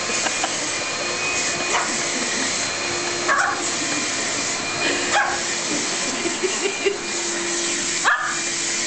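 Vacuum cleaner running steadily, with a dog giving several short barks and yips over it.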